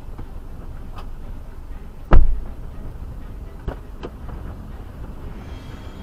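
Steady low vehicle rumble heard from inside a parked 4WD, broken by one loud, heavy thump about two seconds in and a few lighter knocks.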